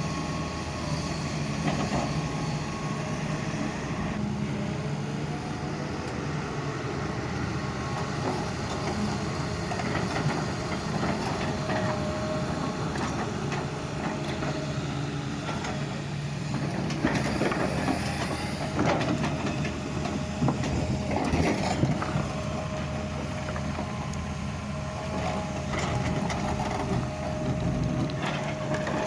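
Doosan excavator's diesel engine running steadily while it digs. A run of clanks and scrapes comes about two-thirds of the way through.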